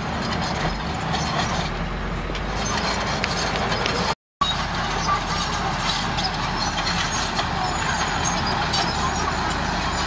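Komatsu D31A crawler bulldozer's diesel engine running steadily under load as it pushes rock fill, with faint scattered clinks of rock and tracks. The sound cuts out completely for a moment just after four seconds in.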